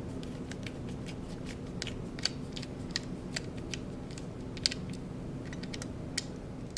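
Small irregular clicks and taps of plastic camera parts being handled and prised apart while a Contour ROAM action camera is dismantled, with a few sharper clicks. Under them runs a steady low hum.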